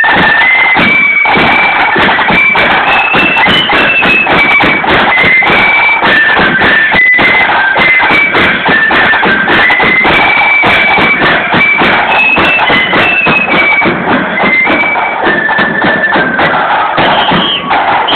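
Marching flute band playing a tune: shrill flutes carry a high, stepwise melody over rapid side-drum rolls and bass drum. The music stops with a held high note near the end.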